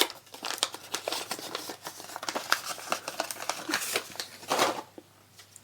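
Trading cards and their booster pack being handled: quick papery flicks, slides and rustles that die away about five seconds in.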